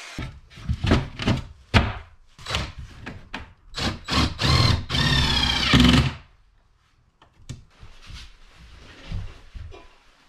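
Timber and boards knocked and handled, then a cordless drill driving screws into a timber cabinet frame for about two seconds, stopping abruptly; a few quieter thumps follow.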